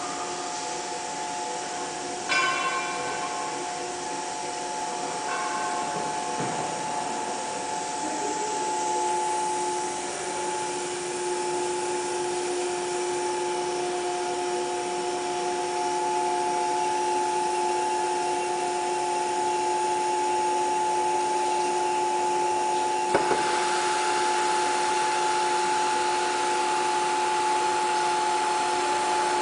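ATC CNC wood router running with a steady whine made of several held tones, with a lower tone joining about a third of the way in. A ringing metallic clank about two seconds in, a smaller one a few seconds later, and a sharp knock about three-quarters of the way through.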